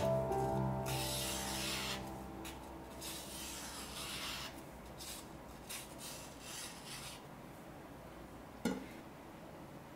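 A freshly sharpened Shun Dual Core yanagiba slicing through sheets of paper held in the air, a series of short papery cuts that die away about seven seconds in. Background music fades out over the first couple of seconds, and there is one short thump near the end.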